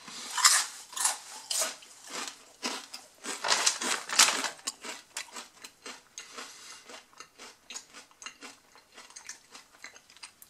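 Someone chewing a thick, cauldron-cooked potato chip (Blair's Death Rain Jalapeño Cheddar). There are loud crisp crunches through the first four seconds or so, then quieter, quicker crunching as it is chewed down.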